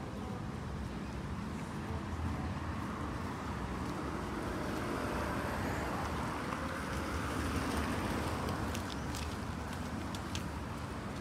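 Road traffic noise with the hiss of a vehicle's tyres on a wet road, swelling through the middle and fading again. A few light clicks sound near the end.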